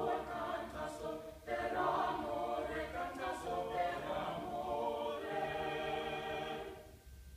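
Small mixed-voice high-school choir singing a cappella in harmony, with a short breath break about a second and a half in. A long held chord near the end is released and the singing stops just before the end.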